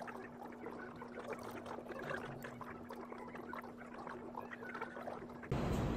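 Café room sound: a steady low hum with scattered small clinks and taps of cups and cutlery. About five and a half seconds in it gives way to a louder low rumble of street traffic.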